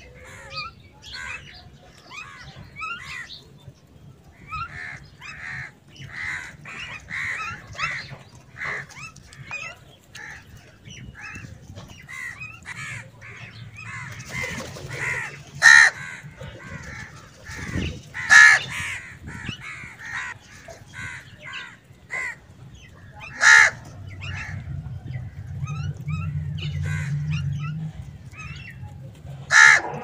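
Common mynas chattering with many short, rapid calls, broken by loud single caws from house crows four times, from about halfway through to near the end. A low rumble sits under the calls for a few seconds near the end.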